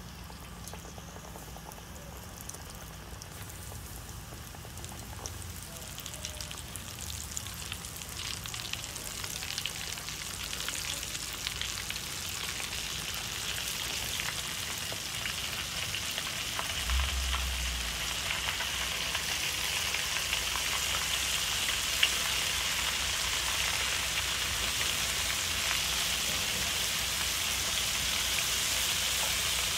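Flour-coated chicken pieces deep-frying in hot oil in a wok: a crackling sizzle that grows steadily louder as more pieces go into the oil, with one sharper pop about twenty-two seconds in.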